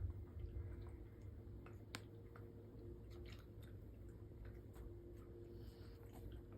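Faint scattered clicks, taps and scratches of cats playing with a small toy, over a low steady hum.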